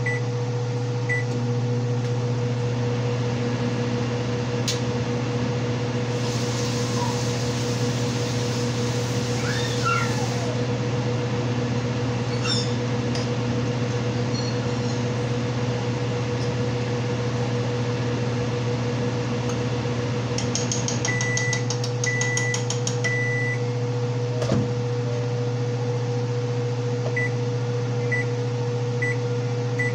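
Steady hum of a running kitchen appliance motor with a constant mid-pitched tone. About two-thirds in, three short electronic beeps sound, followed by a few fainter short beeps near the end.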